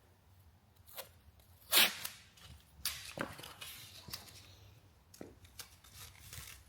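Handling noises while masking tape goes on: a string of short sharp clicks, rips and rustles, loudest about two seconds in.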